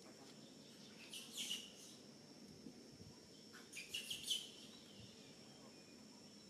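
Two short bursts of high-pitched chirping calls, one about a second in and the second about four seconds in, over a faint steady high whine.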